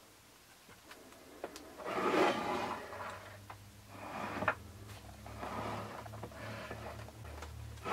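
Handling noise from an FPV monitor being tilted on its bent-wire mount atop a DJI Phantom 2 remote controller: several scraping, rubbing sounds of plastic and metal, with a few clicks.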